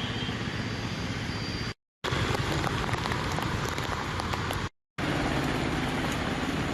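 Steady outdoor noise, an even hiss across the whole range, broken twice by a brief dead-silent cut between clips.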